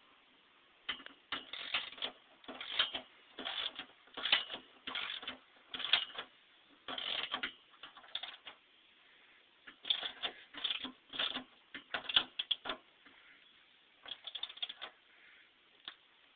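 Hand ratchet clicking in short repeated strokes as it tightens the nerf step's mounting bolts, with a pause about halfway through and another shorter one later.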